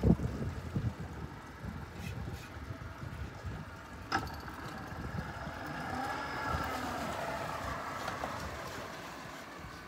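Wind buffeting the microphone on an open boat, with a single sharp click about four seconds in and a faint hum that rises and falls in pitch through the second half.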